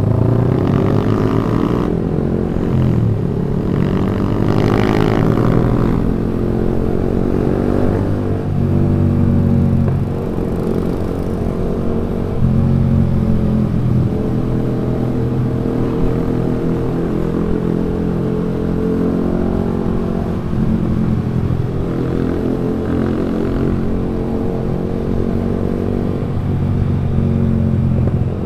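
Yamaha R15 V3's single-cylinder engine heard through a loud aftermarket Proliner exhaust while riding, its pitch rising and falling repeatedly as the throttle opens and closes.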